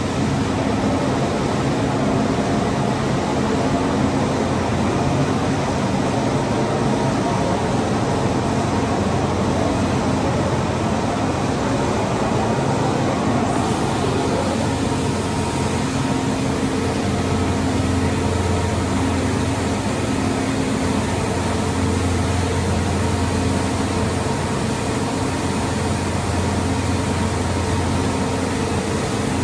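Steady mechanical hum and rushing air of running industrial equipment, with several steady tones. About halfway through a higher hiss joins and the low hum grows stronger.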